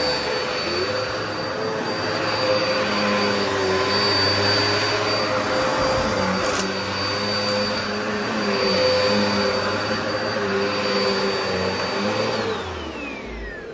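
Eureka upright bagless vacuum cleaner running on a rug with a steady motor whine, with one sharp click partway through. Near the end it is switched off and the whine falls in pitch as the motor spins down.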